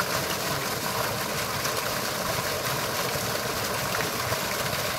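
Heavy stream of water gushing steadily from a submersible pump's discharge hose and splashing onto muddy ground.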